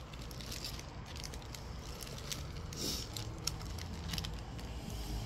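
Faint handling noise: scattered light clicks and a brief rustle, over a low steady hum.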